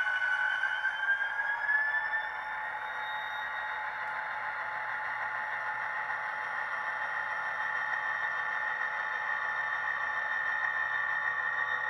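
An HO-scale SD40-2 model's ESU sound decoder playing the EMD diesel prime mover and turbocharger sound through its small speaker. The whine rises in pitch during the first couple of seconds as the engine sound throttles up, holds steady, and begins rising again at the very end.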